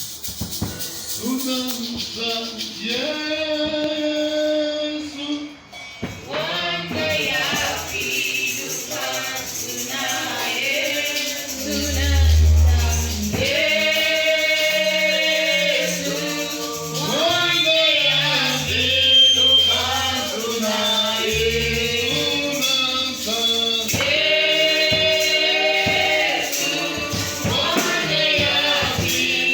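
Gospel singing by a group of voices, backed by a steadily shaken tambourine.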